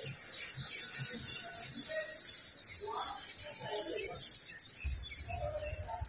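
Cicadas singing: a loud, continuous high-pitched buzz that breaks into a pulsing rhythm of about three or four beats a second from about three seconds in. A low rumble joins near the end.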